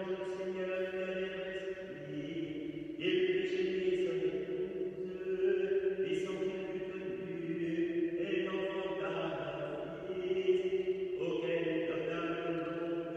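Liturgical plainchant sung by voices, long held notes in phrases of a few seconds with short breaks between them.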